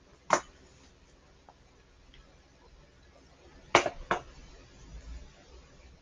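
Three sharp clicks over faint room tone: one just after the start, then two close together nearly four seconds in.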